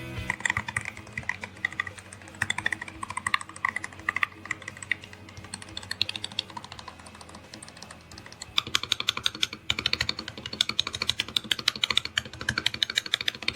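Typing on a low-profile magnetic-switch mechanical keyboard with POM keycaps: a continuous patter of key clicks, faster and louder from about two-thirds of the way in.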